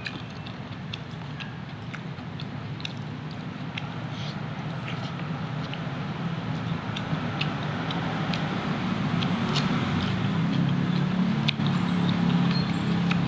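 Close-up eating sounds: chewing, and fingers working rice on a plate, heard as many small clicks and smacks. Under them a low steady rumble grows louder.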